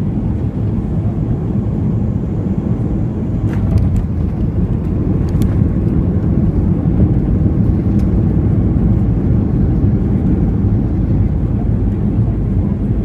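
Steady low rumble of a Boeing 737-800 heard from inside the cabin: engine and airflow noise, growing a little louder about four seconds in, with a few faint clicks.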